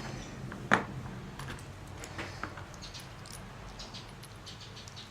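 Small clicks and light rattles of hands handling a plastic extension-cord plug and its wires, with one sharp click about three-quarters of a second in.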